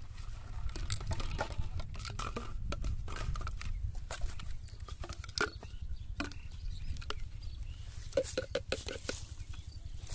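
Plastic soda bottles being handled and set down on dry grass: scattered clicks, crinkles and rustles over a steady low rumble, with a quick run of short squeaks about eight seconds in.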